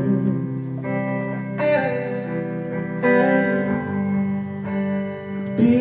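Guitars playing a slow instrumental passage of ringing chords, a new chord struck every second or two.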